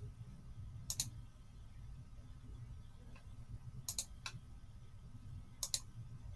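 A few sharp, isolated computer mouse clicks, some in quick pairs, spaced irregularly over a faint low hum.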